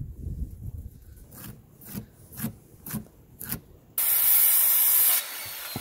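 A few short scraping strokes on a wooden board, about two a second, then about four seconds in a corded circular saw starts cutting the rough-cut board, loud for about a second before the level drops and the cut runs on quieter.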